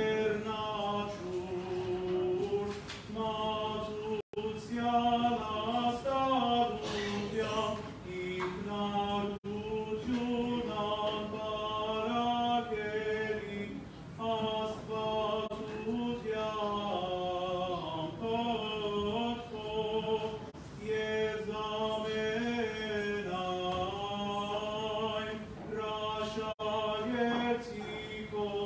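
Unaccompanied male voices chanting an Armenian Apostolic liturgical hymn, a slow melody sung without pause.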